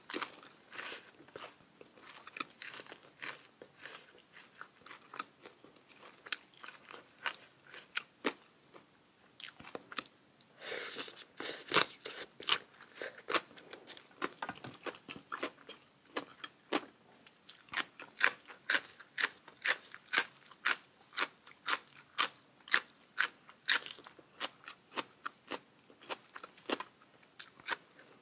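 Close-up chewing and crunching of crisp food in a person's mouth. It is scattered at first, and about two-thirds of the way through it becomes a run of loud, even crunches a little over two a second.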